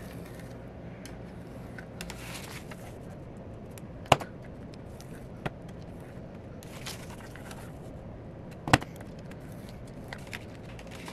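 Envelope punch board in use: the scoring tool scratching briefly along the board's groove through the paper, twice, and two sharp clicks of the punch, about four and a half seconds apart.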